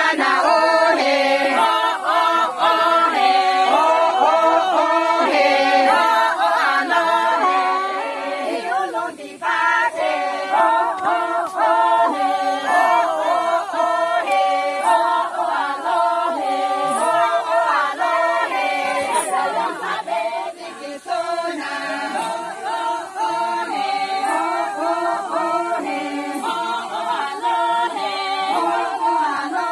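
A group of women singing a Sangtam Naga folk song together, unaccompanied, in long phrases with a couple of short breaks.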